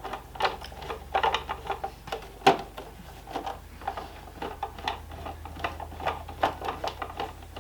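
Plastic parts of a gaming steering wheel being handled and fitted together during reassembly: a run of irregular light clicks and knocks, with one sharper knock about two and a half seconds in.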